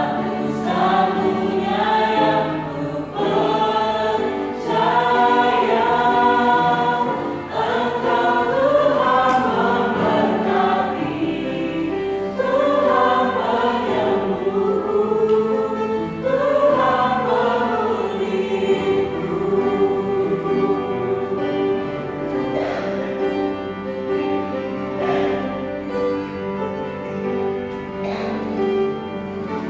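Church choir singing a gospel worship song in parts. Moving sung phrases give way about two-thirds through to long held notes, which grow softer near the end.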